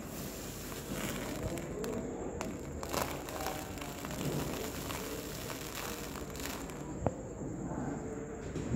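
Faint, indistinct background voices over steady room noise, with a few light clicks.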